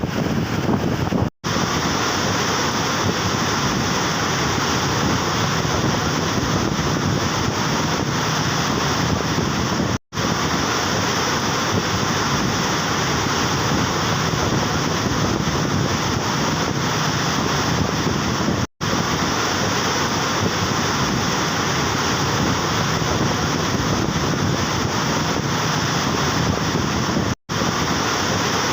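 Floodwater rushing steadily through the Taunsa Barrage on the Indus, a dense, unbroken torrent noise, possibly with wind on the microphone. It is broken by four brief silent gaps about nine seconds apart.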